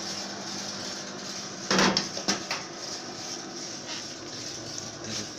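A loud clatter of hard objects being handled about two seconds in, followed by a couple of lighter knocks, over a steady low hum.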